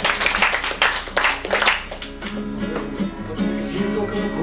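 Classical guitar played solo: a run of quick strummed chords for about the first two seconds, then lighter picked notes.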